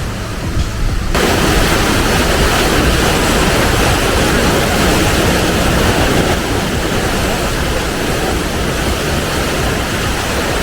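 Waterfall's rushing water: a loud, steady hiss cutting in abruptly about a second in.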